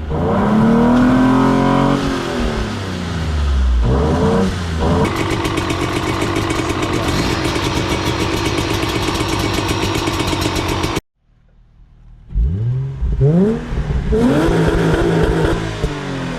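Car engine revving hard, its pitch climbing and dropping repeatedly, with a stretch of steady high-revving running; the sound cuts off abruptly about eleven seconds in and then returns with more rising and falling revs.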